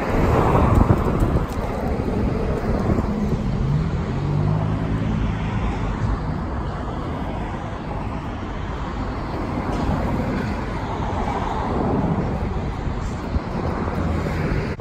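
Road traffic going by on a multi-lane street. About four seconds in, one vehicle's engine hum rises slightly in pitch as it passes.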